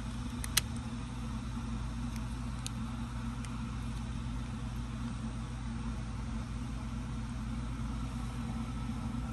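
Steady low hum, with a sharp click about half a second in and a few faint ticks after it, as glued plastic action-figure torso pieces are pressed together.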